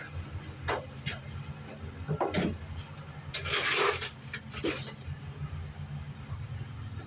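Small metal hardware being handled during a light fitting job: scattered light clinks and rattles, with a louder rustling scrape about three and a half seconds in, over a steady low hum.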